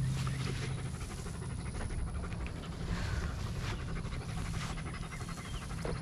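A dog panting in a quick, steady rhythm.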